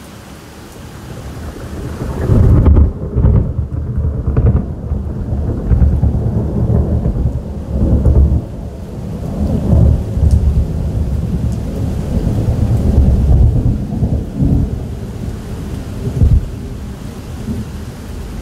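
Thunder: a long rolling rumble that starts about two seconds in and swells and fades in several surges, over steady rain. A short, sharper crack comes near the end.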